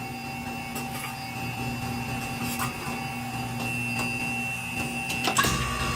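Factory machine running with a steady hum and whine, a few light clicks, and a deeper hum setting in near the end.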